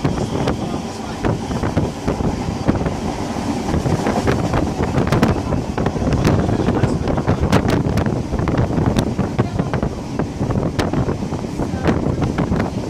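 Wind buffeting the microphone at a moving train carriage's window, over the steady rumble of the carriage running on the track, with scattered sharp clicks and rattles.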